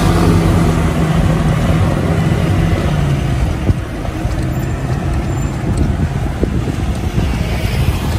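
Street traffic noise: a city bus running alongside with a steady low engine hum for the first few seconds, then a more even traffic roar.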